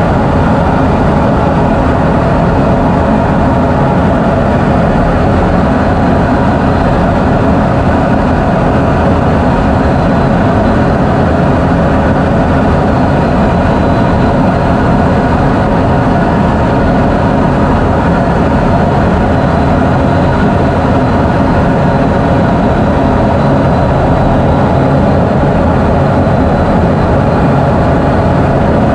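Jet engine running steadily: a loud, even drone that keeps the same pitch throughout.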